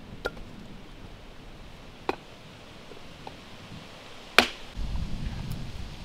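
Sharp clinks of metal cookware as a lid is handled on a large black pan, four of them, the loudest a little past four seconds in. After it a low rumbling noise sets in.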